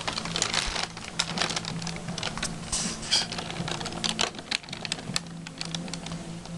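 Irregular clicking and tapping of a cat's claws and paws on wooden floorboards as it bats at a small ball, close to the microphone.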